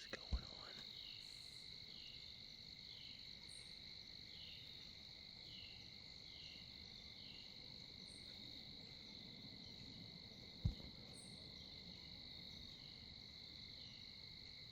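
Steady insect chorus of crickets calling, a continuous high trill with a repeating chirp about twice a second. Two soft thumps, one just after the start and one about ten and a half seconds in.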